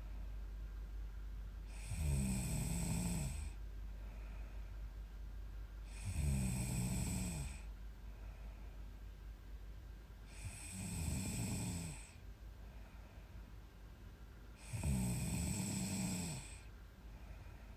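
A young woman snoring loudly in her sleep: four snores about four seconds apart, each lasting a second or two, with quieter breathing between.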